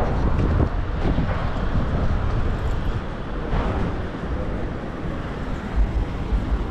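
Street traffic: a steady low rumble of vehicles, with wind buffeting the microphone.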